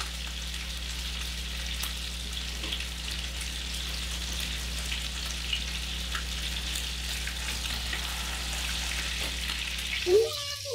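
Food sizzling as it sears in a hot frying pan on a gas stove: a steady hiss with scattered small crackles and pops.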